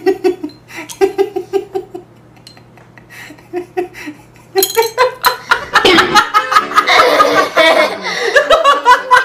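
People laughing: a quick rhythmic ha-ha-ha in the first two seconds, a quieter lull, then louder, fuller laughter from about halfway through.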